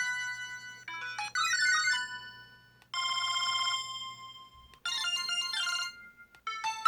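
A series of short electronic ringtone and alert melodies from a 2007 Samsung Anycall SPH-W2500 phone, played one after another with brief gaps. One melody ends, then come a quick run of notes, a trilling chime with a held note, another short jingle, and a new melody that begins near the end.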